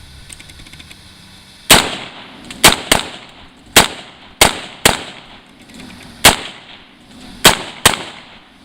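AR-15 rifle firing nine quick semi-automatic shots at an uneven pace. Three of them come in close pairs less than half a second apart.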